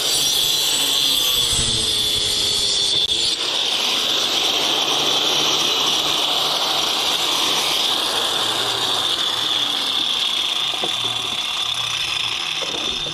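Power tool running with a steady high whine.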